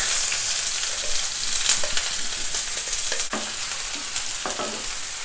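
Freshly added chopped onion sizzling in hot mustard oil in a kadhai over a high flame, a steady high hiss at the start of frying. A few light scrapes of a stirring spoon come through.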